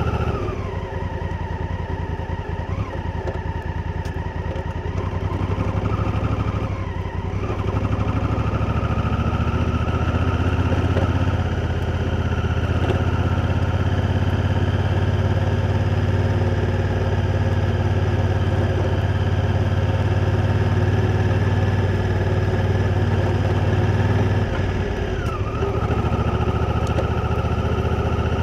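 Honda Africa Twin's parallel-twin engine running under way, picked up by a microphone close to the engine. The engine note holds mostly steady and dips briefly a few times, near the start, about a quarter of the way in and near the end.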